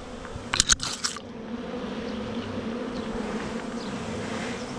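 Swarming honeybees buzzing steadily, a many-winged hum from a swarm clustering around its queen. A few brief sharp noises cut in about half a second to a second in.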